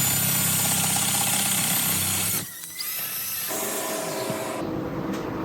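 A power tool running loudly for about two and a half seconds, cutting off suddenly, followed by quieter workshop noise with a faint steady hum.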